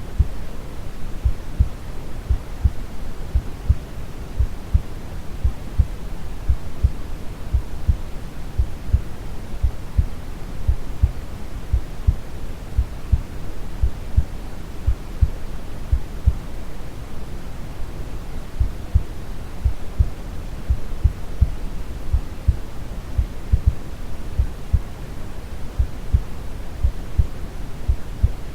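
Steady brown noise, a deep rushing hiss strongest in the low end, with a calm heartbeat of soft, regularly spaced low thumps beating under it throughout.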